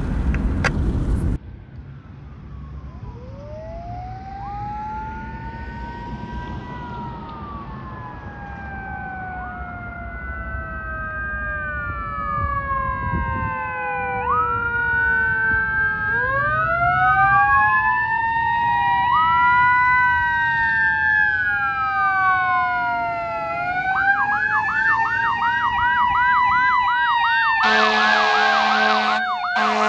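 Approaching fire engine siren: a slow rising and falling wail that grows steadily louder, switching to a fast yelp a few seconds before the end. The truck's horn then sounds in steady blasts near the end.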